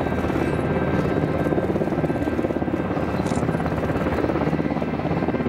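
C-130 Hercules transport's four turboprop engines running with a steady, fast propeller beat.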